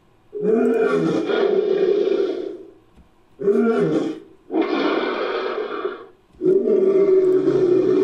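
Designed creature roars for a fictional manticore, built by editing and layering lion roars and monster sound effects. Four roars: a long one, a short one, another long one after a brief gap, and a fourth starting a little after six seconds that is still going at the end.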